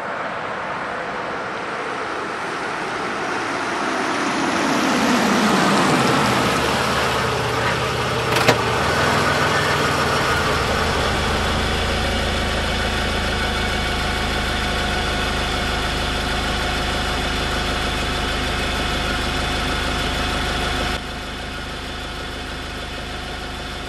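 Car engine idling steadily, preceded by a sound that falls in pitch over a few seconds and a single sharp click. The level drops abruptly about three seconds before the end.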